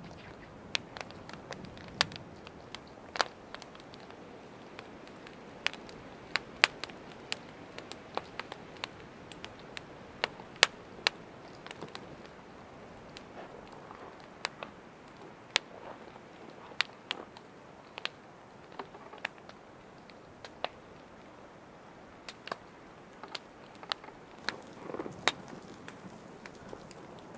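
Wood campfire crackling, with irregular sharp pops and snaps. A soft rustle comes near the end.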